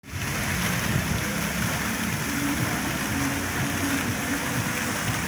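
Ornamental fountain jets splashing steadily into a pool.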